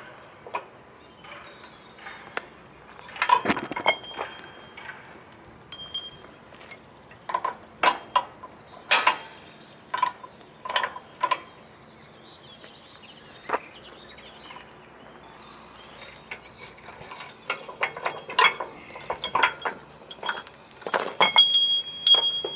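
Irregular metallic clinks and clanks of steel fittings on a cable drum trailer being handled by hand, busiest near the end, where a struck part rings briefly.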